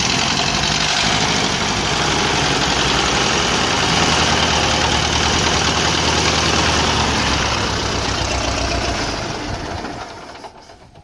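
1924 Ford Model T's four-cylinder engine running under load as the car climbs a trailer's ramps onto the deck, a little louder about four seconds in. It dies away and cuts off near the end as the car is stopped and parked.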